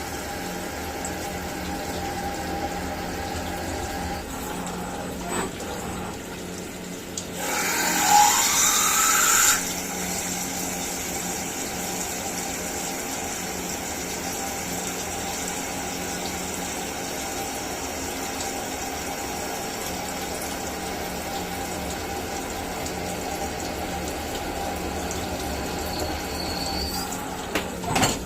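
CNC milling machine running steadily with a low hum and a whine while coolant flows and splashes. About seven seconds in, a louder hissing rush of coolant spray or air blast lasts about two seconds.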